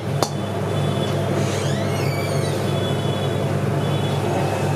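A steady low mechanical hum runs throughout, with two sharp clicks at the start and a brief high squeaky chirp about two seconds in.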